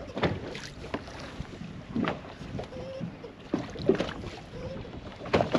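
Irregular knocks and handling noises in a small fishing boat on the water, over a steady hiss of wind and water; the loudest knocks come about two seconds in and near the end.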